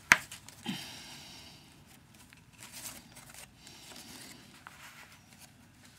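A single sharp click from small craft scissors as they are put down on the work mat, then stiff perforated parchment paper rustling in short spells as the folded piece is handled.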